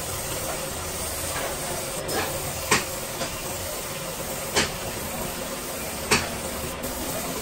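Compressed-air paint spray gun hissing steadily as it sprays paint, with several short, louder spurts every second or two.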